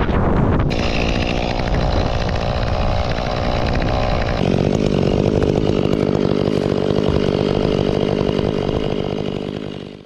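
Stihl chainsaw running at full throttle as it cuts through the trunk of a large cedar. The engine note changes about four seconds in, and the sound fades out just before the end.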